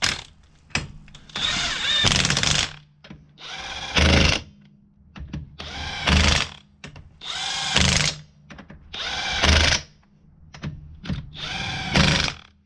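DeWalt XR cordless impact wrench driving the wheel bolts onto a VW Crafter's steel wheel. It runs in six short bursts of about a second each, and each burst builds to its loudest point as the bolt runs down tight.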